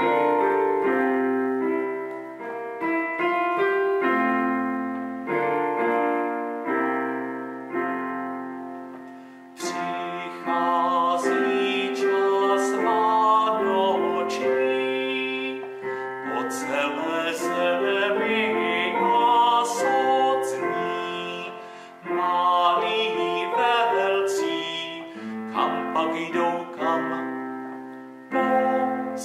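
Electronic keyboard with a piano sound playing a slow chordal accompaniment. About ten seconds in, a man's voice joins, singing the melody of an Advent canon over it.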